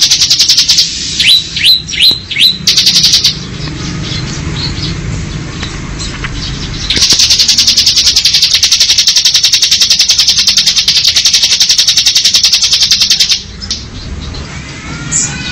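Bar-winged prinia (ciblek) giving its 'ngebren' song: a fast, drill-like buzzing trill held for several seconds. A few sharp falling chirps come about a second in, then a pause, then a second long trill from about seven to thirteen seconds in.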